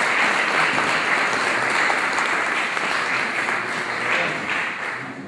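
Audience applauding: a steady round of clapping that tails off near the end.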